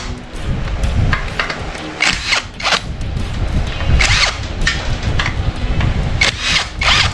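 Hand tools working on a motorcycle being dismantled: a series of short metallic clanks and rattles, five or six separate bursts, as parts are unbolted.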